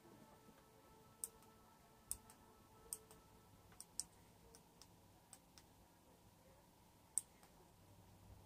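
Small tactile push-button switches on a hand-held perfboard clicking as they are pressed one at a time to step through a menu. There are a handful of sharp single clicks, about a second apart, with a longer pause before the last one; otherwise it is near silence.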